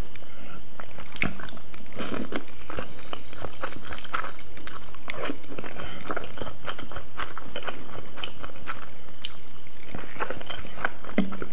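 Slurping and chewing of thick jjajangmyeon noodles in black bean sauce: a continuous run of wet mouth clicks and smacks.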